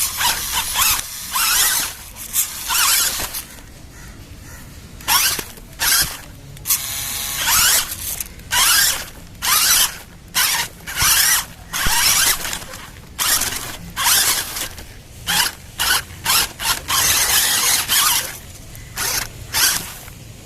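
A radio-controlled 4WD crawler's electric motor and gearbox whine in short throttle bursts, starting and stopping over and over, with one longer, steadier whine about seven seconds in.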